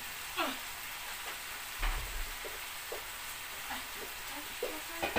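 Diced potatoes frying in hot oil in a frying pan, a steady sizzle with scattered crackles. There is a low thud about two seconds in.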